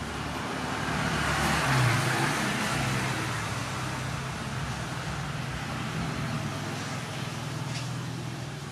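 Road traffic noise: a motor vehicle's engine hum with a steady low drone, swelling about two seconds in and then settling.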